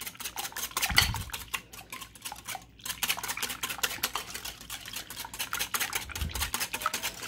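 Wire whisk beating eggs and cream in a glass bowl: rapid, steady clicking of the wires against the glass, with two soft low thuds, about a second in and near the end.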